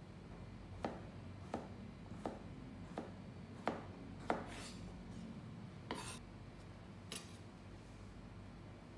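Kitchen knife cutting a peeled potato on a wooden cutting board: six even knocks of the blade on the board, about one every 0.7 s, followed by a couple of brief scraping sounds.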